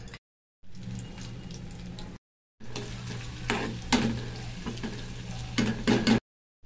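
Sliced onions sizzling as they fry in hot oil in a non-stick kadai, stirred with a metal spatula that clicks and scrapes against the pan, with the loudest knocks about four seconds in and near the end. The hiss drops out into dead silence twice for a moment.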